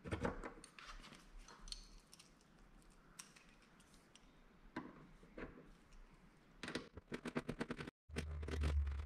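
Hand tool clicking and tapping on metal fasteners in a bus tail-light mounting hole, with scattered single clicks and then a quick even run of clicks, about ten a second, near the end. A low steady hum comes in just before the end.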